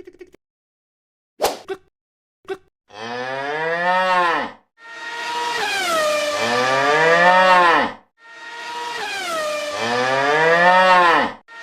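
Two short clicks, then three long cow moos in a row, each rising and then falling in pitch, with a fourth starting at the end.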